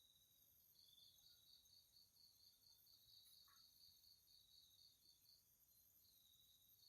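Faint crickets chirping in a steady pulsing trill of about four pulses a second, over a constant high-pitched insect drone.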